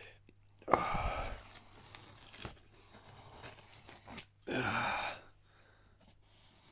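Knife blade slicing and scraping along a cardboard box's taped seam: two rough strokes, about a second in and again about four and a half seconds in, with light scratching between.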